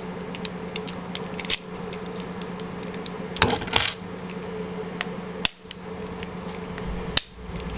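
Bump key being struck into a Kwikset five-pin deadbolt to jar the pins and open the lock. It makes a few sharp metallic taps spread over several seconds, with lighter clicks between them.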